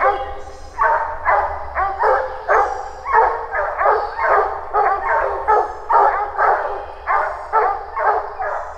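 English bear hounds barking treed, about three barks a second without letup: the steady tree bark of hounds holding a bear up a tree.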